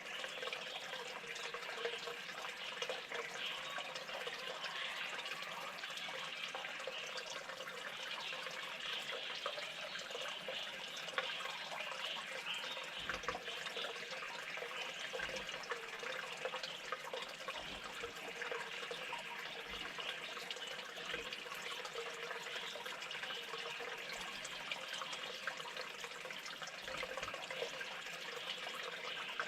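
Steady sound of running water, splashing and trickling, with scattered small ticks and a few faint low thumps in the second half.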